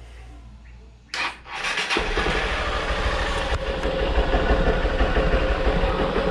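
Honda Bros 160 motorcycle's single-cylinder engine being started: a brief burst of cranking about a second in, then it catches and settles into a steady idle. The rubber damper insert in the air-filter box has been removed, so the intake sounds louder.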